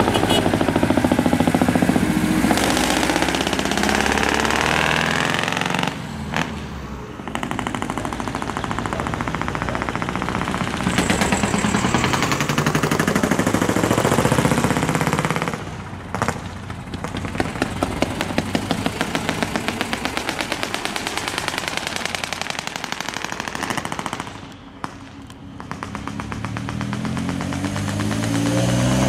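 Diesel engines of heavy decorated trucks (dekotora) driving past one after another, their exhausts giving a rapid, rattling pulse that swells as each truck approaches and falls away, with brief lulls between trucks.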